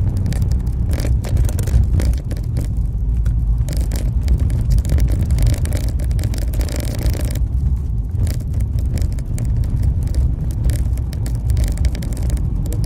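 Vehicle engine and road noise heard from inside the cabin while driving, a steady low rumble with frequent short rattles and knocks.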